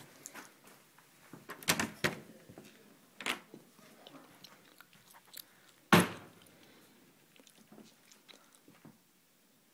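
Scattered knocks and clicks of someone moving through a room with a handheld phone: a couple of louder knocks about two seconds in, another a little after three seconds, and the loudest, sharp knock about six seconds in, dying away into faint ticks.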